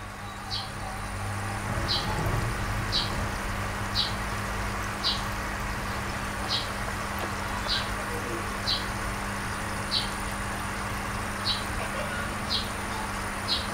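A short, high chirp repeated about twelve times, roughly once a second, over a steady background hiss and low hum.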